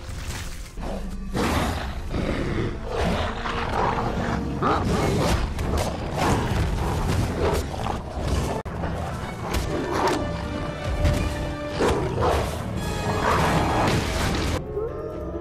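Film soundtrack of two giant wolves fighting: growls and roars with repeated heavy thuds and impacts, over loud dramatic music. Near the end the wolves smash into a wooden boat on sawhorses with a crash.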